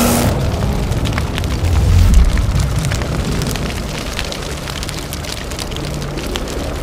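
Cinematic sound effect of a deep rumbling boom about two seconds in, over scattered crackles like burning embers. It slowly fades, then cuts off abruptly.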